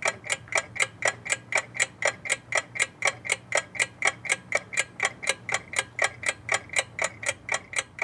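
Clock ticking sound effect: sharp, evenly spaced ticks, about four a second, over a faint low drone.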